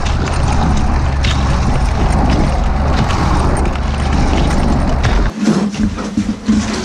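Ski-Doo Skandic 900 ACE snowmobile's three-cylinder four-stroke engine running steadily at speed, with track and snow noise, heard from a microphone mounted on the machine. About five seconds in it cuts off to a quieter stretch of scraping and knocks as a toboggan is dragged across a concrete floor.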